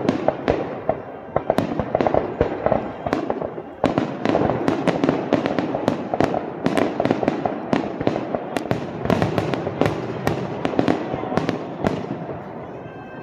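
Aerial firework shells bursting one after another, a dense run of sharp bangs and pops with several shells going off close together; the pace thickens about four seconds in.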